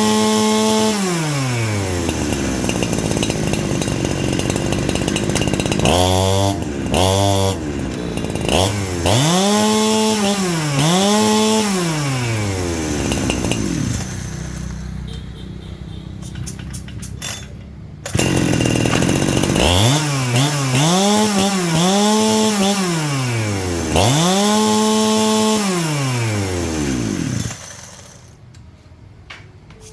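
Small engine revved again and again from idle to high speed and back. It rises once near the start, gives a few quick blips, rises twice more, idles more quietly for a few seconds, then rises four more times before dropping back to a low idle near the end.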